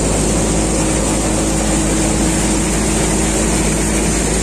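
Tractor-driven groundnut thresher running under load, with the Mahindra 585 DI tractor's diesel engine driving it. It makes a steady, unvarying machine drone with no change in speed.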